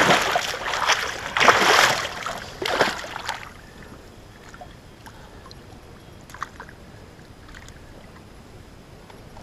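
A large musky thrashing in a landing net at the boat's side, splashing water hard in several loud bursts over the first three seconds or so. Later come a couple of faint knocks.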